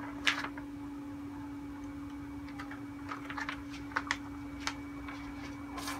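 Scattered short, faint clicks and ticks over a steady low hum. The two sharpest clicks come about four seconds in.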